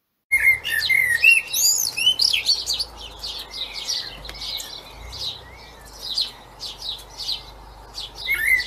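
Common blackbird singing, starting a moment in: rich warbling phrases that break into quick high twitters, loudest at the start and again near the end.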